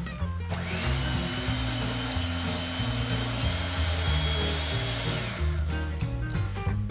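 Electric hand mixer beating a butter mixture in a glass bowl: the motor spins up with a rising whine about half a second in, runs steadily, then winds down about a second before the end. Background music plays underneath.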